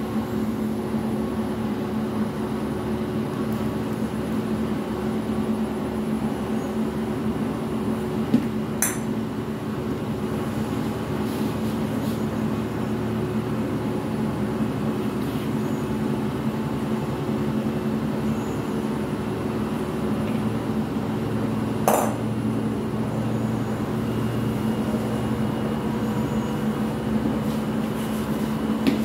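A steady low mechanical hum, with two sharp knocks, about nine seconds in and again about twenty-two seconds in.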